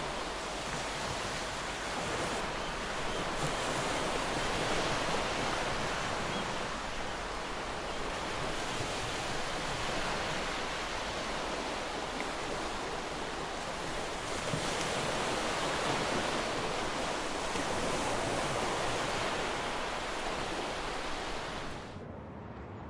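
Sea surf washing ashore: a steady rush of waves that swells and ebbs every few seconds. It cuts off abruptly shortly before the end.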